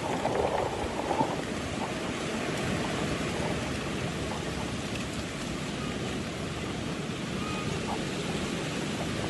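Steady wind rushing, blowing across the microphone.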